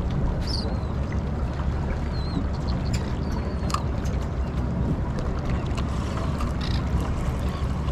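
Fishing boat's engine running steadily in a low hum, with a few light clicks and faint high chirps over it.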